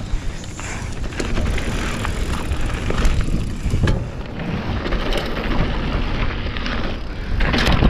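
Mountain bike rolling down a dirt trail: a steady rush of tyre noise with scattered rattles and knocks over bumps, and a louder clatter near the end.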